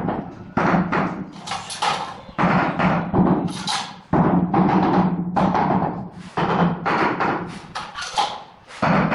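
Wooden hammer handle knocking a large ceramic floor tile to bed it into the mortar: repeated knocks, about one a second, each with a short ring from the tile.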